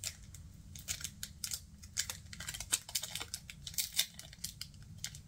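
Pokémon card booster pack and cards being handled: a run of irregular crinkles, snaps and clicks.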